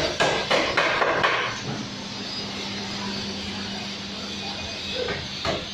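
Hammering, regular strikes about three a second that stop after about a second and a half. A steady machine hum with a low drone then carries on alone.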